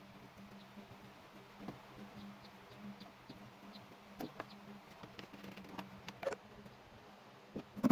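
Faint, scattered light clicks and taps, irregular and a second or so apart, over a low steady hum.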